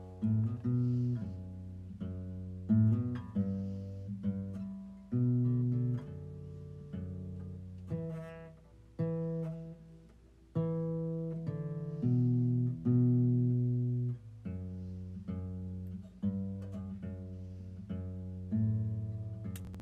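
Slow guitar music: plucked notes and chords, each struck and left to ring out and fade.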